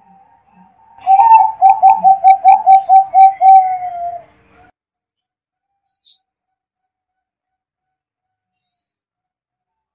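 Zebra dove (perkutut) cooing: a quick run of about a dozen short notes over some three seconds, sliding a little lower at the end.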